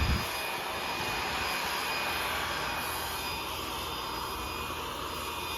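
A steady mechanical drone with a faint high-pitched whine, after a brief low thump right at the start.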